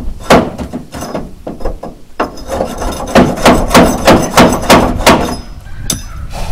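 Hammer blows on a truck's steel receiver hitch tube, knocking rust and debris loose: two separate strikes, then a quick run of about seven at roughly three a second, and one more near the end.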